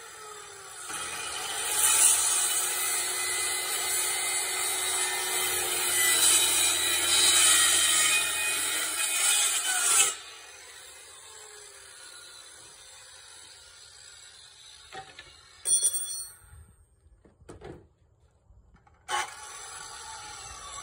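A power tool runs under load for about nine seconds, then stops. A few sharp knocks follow.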